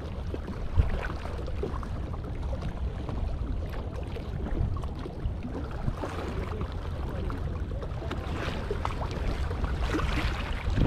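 Wind rumbling on the microphone over small waves lapping and splashing against a sandstone rock platform, with one sharp knock about a second in.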